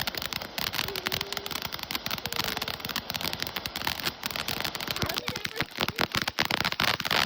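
Small consumer fireworks crackling: a dense, continuous run of rapid sharp pops and snaps that keeps going without a break.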